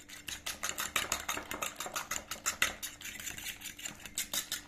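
A metal fork whisking a raw egg in a ceramic bowl: fast, even clicking of the tines against the bowl, several strokes a second, with a wet slapping of the egg.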